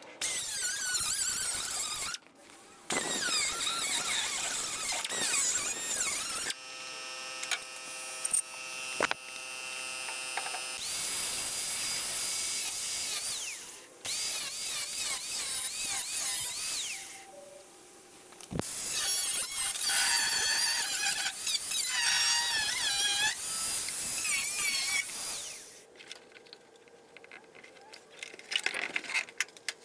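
Grinder cutting discs cutting into sheet-steel bodywork, the disc screeching at a high wavering pitch in several long bursts. There are short breaks between cuts, and the cutting goes quieter near the end.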